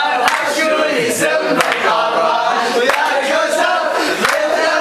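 A group of men singing together in chorus, with sharp hand claps on a steady beat about every second and a bit.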